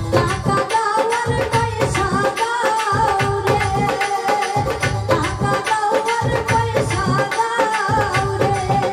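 Bengali Baul folk song: a woman singing a wavering melody over a dhol drum beating a steady rhythm, with keyboard accompaniment.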